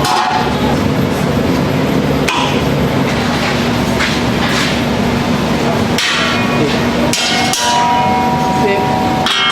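Hammering on steel amid steady fabrication-shop noise with a constant hum; late on, struck metal rings with two clear tones.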